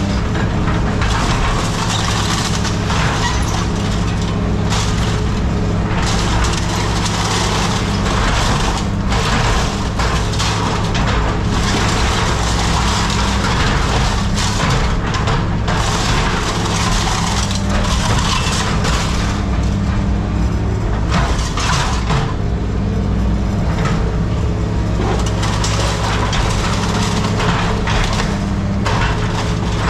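A heavy diesel machine running steadily under load, with continual crunching and cracking as scrap metal is crushed or broken up.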